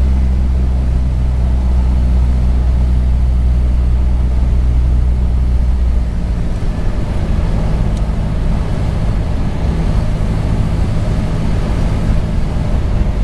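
Cessna 172's piston engine and propeller heard from inside the cabin on a landing approach: a steady low drone that drops away about halfway through as power is reduced, leaving a rougher, noisier rumble.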